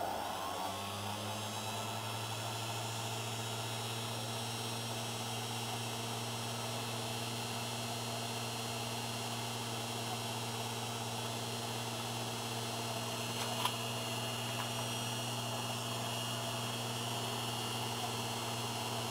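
Unimat 3 mini lathe switched on: its motor spins up within about a second and then runs steadily with a constant hum and hiss. One small tick about two-thirds of the way through.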